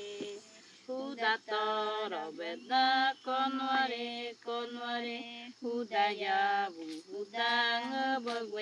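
A single voice chanting or singing unaccompanied, a slow melody of long held notes in short phrases with brief pauses between them.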